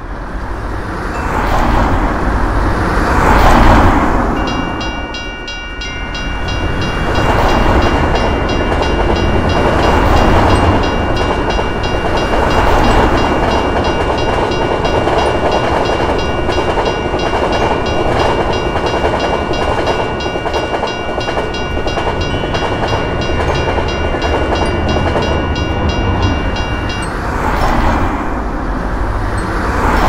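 A railroad crossing bell rings rapidly and steadily while a passenger train rumbles and clatters past over the crossing; the bell starts about four seconds in and stops a few seconds before the end.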